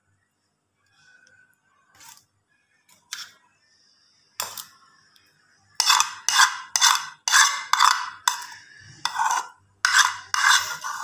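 Metal utensil scraping and clinking against metal cookware: a few light clinks, then from about six seconds in a quick run of loud scraping strokes, about two a second.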